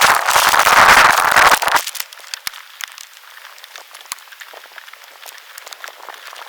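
Typhoon wind and rain: a strong gust buffets the microphone for about the first two seconds, then steady rain hisses with close raindrops crackling and ticking.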